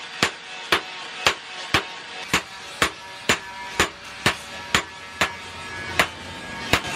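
Hand hammer forging a red-hot bearing-steel knife blade on a steel post anvil: steady blows, about two a second, each with a short metallic ring.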